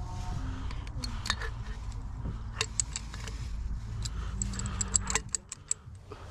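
Metal tools and small metal parts clinking and rattling, with several sharp clinks that ring briefly, over a low steady rumble that cuts off about five seconds in.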